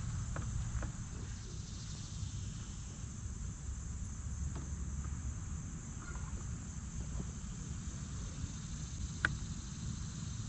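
Steady high-pitched insect chorus, like crickets, over a low rumble, with a few faint clicks and one sharper click about nine seconds in.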